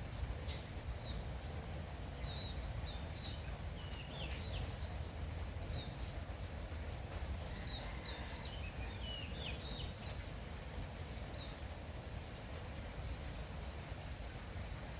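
Light rain falling steadily with scattered drips and patter, while small birds chirp in short, high phrases during the first few seconds and again around eight to eleven seconds in.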